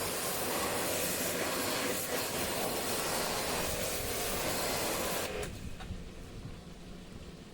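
A steady, loud hiss that cuts off suddenly about five seconds in, leaving only faint low noise.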